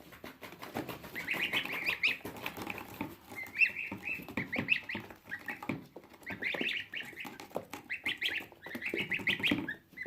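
Baby gosling peeping rapidly in repeated runs of short high calls, with faint handling clicks and rustles.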